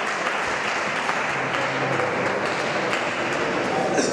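Spectators clapping in a large hall after a point, with a sharp tick near the end.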